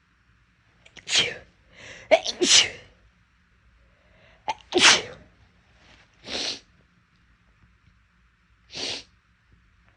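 A person sneezing hard, again and again: a loud sneeze about a second in, a quick cluster of sneezes just after two seconds, and the loudest one near five seconds. Two shorter, quieter bursts follow, the last near the end.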